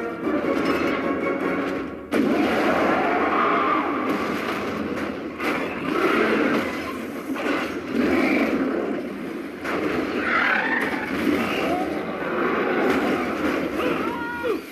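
Action-film battle soundtrack of giant robots fighting a kaiju in a stormy sea: dense crashing and rumbling effects with score music underneath, and a sudden loud hit about two seconds in.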